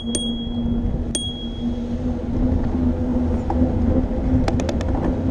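Bicycle bell rung twice, once just after the start and again about a second in, the second ring lingering, over steady traffic and road rumble. A quick run of clicks comes near the end.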